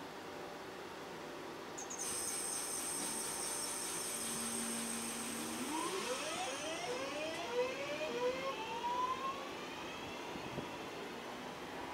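Electric train pulling away: a high steady whine from the traction equipment switches on, then a few seconds later the motor tone climbs in a series of stepped, rising whines as it accelerates.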